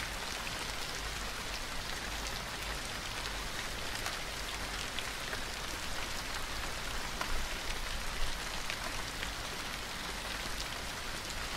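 Steady rain falling, an even hiss with many individual drops ticking through it and a couple of slightly louder drop hits a little past the middle.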